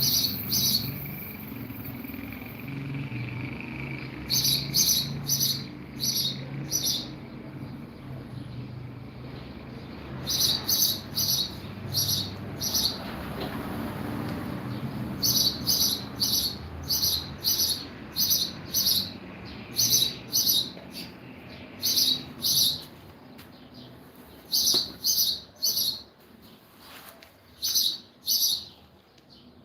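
A bird chirping over and over in short, high notes, in uneven runs, over a low steady hum.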